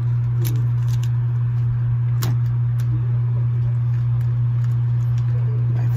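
A steady low hum throughout, with a few light clicks from small objects being handled, the clearest about two seconds in.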